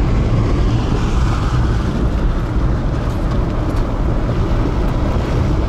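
Steady low rumble of road and engine noise inside a small Daewoo Matiz driving along a rough, potholed highway.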